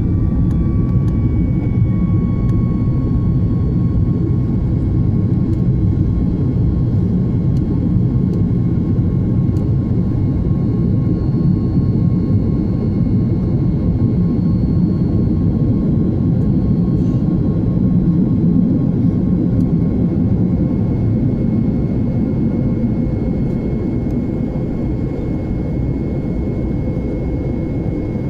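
Airliner cabin noise in the climb after take-off: a steady, loud jet-engine rumble with a thin engine whine whose pitch dips slightly a second or two in, easing a little near the end.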